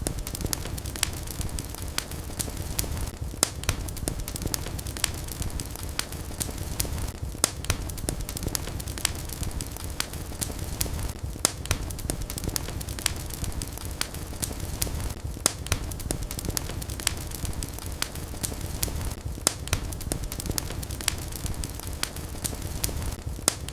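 Wood fire burning in a fireplace, a steady low rumble of flames with frequent sharp, irregular crackles and pops.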